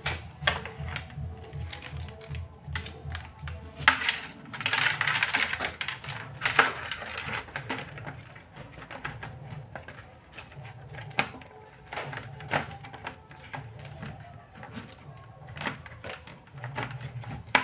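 Clicks, taps and knocks of plastic casing, cables and circuit boards being handled as an LCD monitor is fitted back together, with a longer scraping rustle from about four to seven and a half seconds in. Background music plays quietly underneath.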